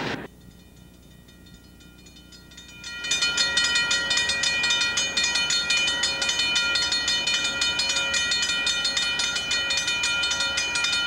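Railroad grade-crossing bell starting to ring about three seconds in and then ringing in fast, even strokes as the crossing gates come down for an approaching train.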